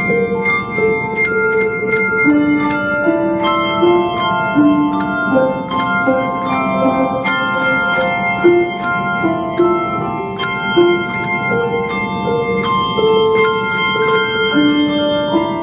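Handbell choir playing a hymn arrangement: a steady succession of struck bell notes that ring on and overlap into chords under a moving melody.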